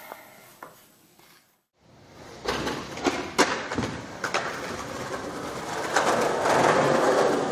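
Steady outdoor rushing noise that swells after a brief gap, with a few sharp knocks a couple of seconds in.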